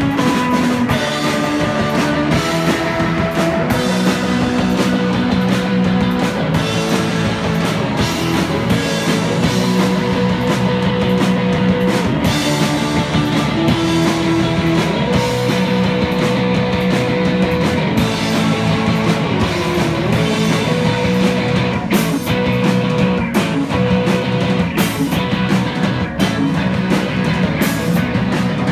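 Live rock band playing: electric guitar, bass guitar, drum kit and keyboard, loud and continuous, with long held notes over a steady beat.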